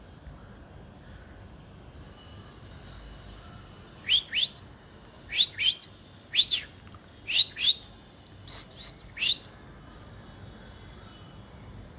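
Kite calling: a run of about ten short, shrill whistles, each falling steeply in pitch, mostly in quick pairs, starting about four seconds in and stopping before the end.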